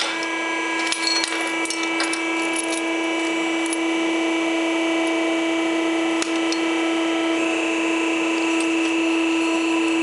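Wire-crimping press running with a steady mechanical hum as its jaws close on a fitting. A few light metal clicks come in the first two seconds, and one of the higher tones shifts up slightly about seven and a half seconds in.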